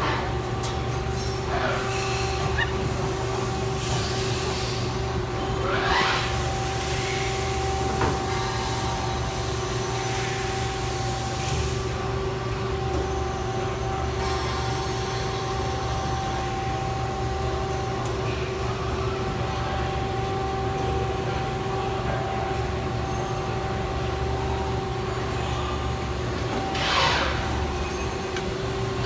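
CNC turn-mill lathe running a machining cycle: a steady machine hum with two held tones, broken by two bursts of high hiss lasting about two seconds each and a couple of brief sweeping whooshes.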